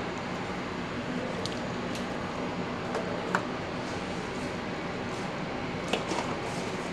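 Marinated poultry pieces being handled and laid into a stainless steel hotel pan, with wet squishing and a few light clicks against the steel, the sharpest about three seconds in and more near the end, over a steady background hum.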